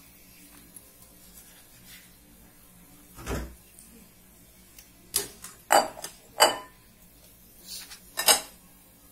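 Chef's knife cutting raw chicken breast on a wooden cutting board, the blade knocking on the board: one dull knock about three seconds in, then several sharp knocks in the second half.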